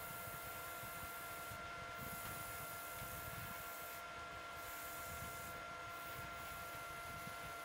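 Wood lathe running with a steady whine while abrasive paper is held by hand against the spinning face of a laminated wood platter, giving a hiss that drops out briefly a few times as the paper is lifted or moved.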